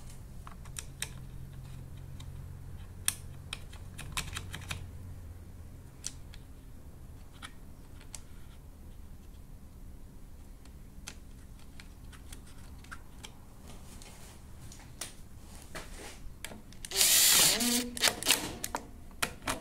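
Scattered small clicks and knocks of parts being handled. Then, about 17 s in, a cordless drill/driver runs in short whirring spurts that spin up and down, driving the fasteners of a lawn mower's plastic air cleaner housing.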